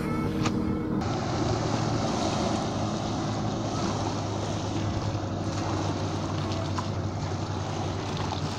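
Motorboats running past on a river: a steady engine drone with the rush of water and wind on the microphone. A small click comes just before, as a folding knife is closed.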